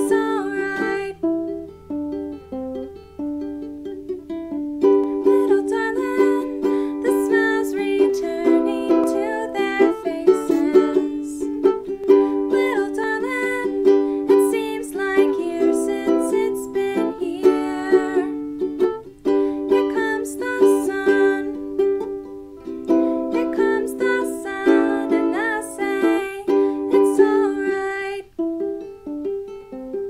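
Music played on a plucked string instrument: a tune of sharply picked notes, with a short pause early on and a phrase ending near the end.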